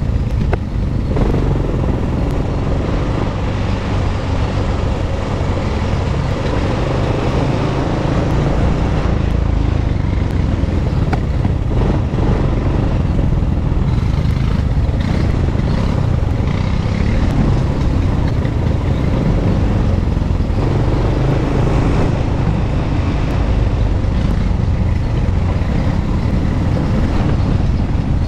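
ATV engine running steadily as the quad is ridden along a rough dirt trail, heard from the rider's seat.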